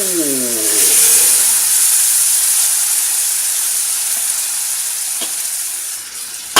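Loud sizzling hiss as liquid hits a hot frying pan of fried mushrooms and flour, slowly dying down as the pan cools.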